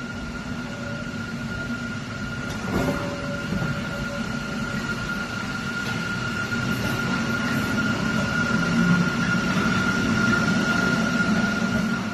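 Mexico City Metro train under traction: a steady high whine over a rumble that grows gradually louder as the train gathers speed, with a single knock about three seconds in.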